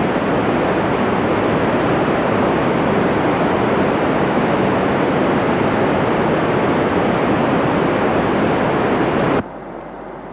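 Loud, steady hiss of an FM two-metre amateur radio receiver with no signal coming through, between transmissions. Near the end the hiss cuts out suddenly to a much quieter level.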